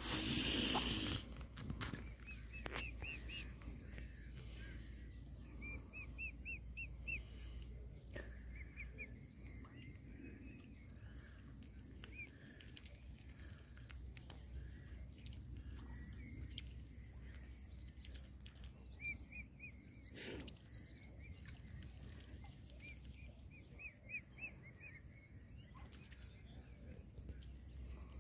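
Mute swan cygnets peeping: runs of short, high, evenly repeated chirps, several a second, coming in bursts with pauses between. A brief rush of noise at the very start is the loudest moment.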